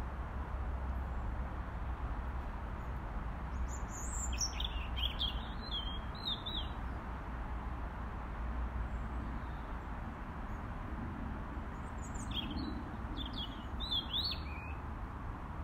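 Robin singing: two short phrases of high, rapid warbling notes, one about four seconds in and one about twelve seconds in, over a steady low background hiss.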